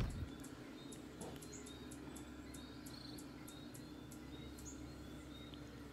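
Faint outdoor ambience: an insect ticking high and rapidly, about four times a second, thinning out after about three seconds, with a few faint chirps and a low steady hum under it.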